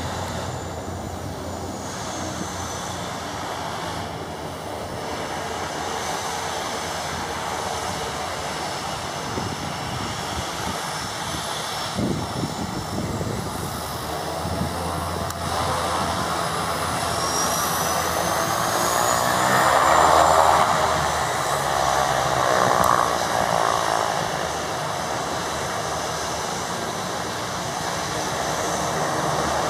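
Turboprop aircraft engines: a steady propeller drone and turbine whine. Partway through, the sound builds with a rising whine as a plane passes close on its takeoff run; it is loudest about two-thirds of the way in, then settles back to a steady run.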